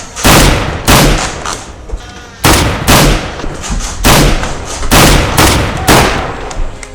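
A rapid series of loud, gunshot-like blasts, about a dozen in six seconds, each sharp and dying away quickly.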